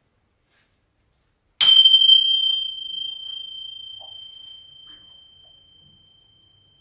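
A small chime struck once, its single high, pure tone ringing on and fading slowly over about five seconds.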